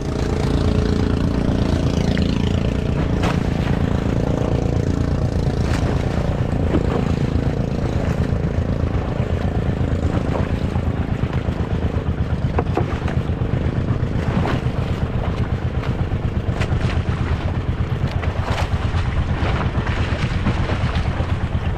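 Small engine of a motorized outrigger banca running steadily under way, with a fast, even pulse, over water rushing along the hull and outriggers. A few light knocks sound over it.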